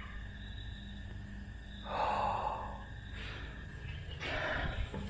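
A man sighing heavily, a long breathy exhale about two seconds in and a shorter breath near the end.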